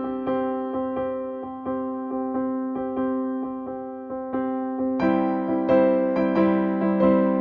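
Background music: gentle electric piano playing a repeated pattern of notes, growing fuller and louder about five seconds in.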